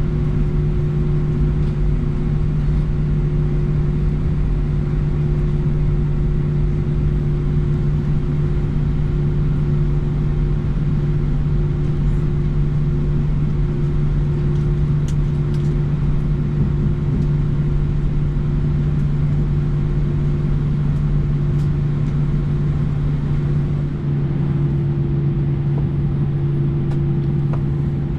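Airbus A319 cabin noise while taxiing: the jet engines at idle give a steady low hum with two held tones over a rumble.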